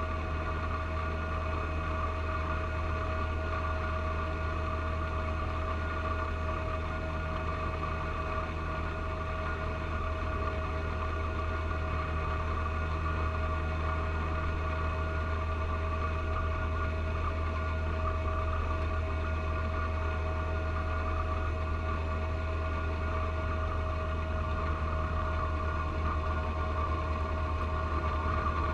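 John Deere 1025R compact tractor's three-cylinder diesel engine running steadily under load while driving the front snow blower through heavy wet snow. The low engine drone carries a steady higher whine above it.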